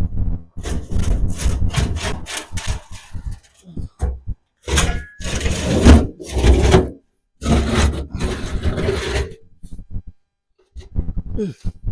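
Metal fuel tank from a 1992 Ford F-150 dragged across gravel, scraping and grinding in several separate pulls with short pauses between, loudest about halfway through.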